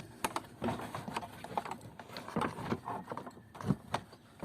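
Irregular clicks and knocks of plastic parts being handled as a Ford Edge reverse camera and its connector are worked back into their plastic socket, the loudest knock near the end.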